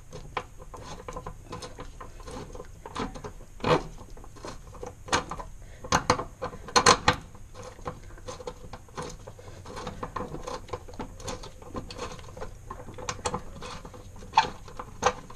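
Hand ratchet clicking in short runs as a propshaft joint bolt is undone, with a few louder metallic knocks about four and seven seconds in.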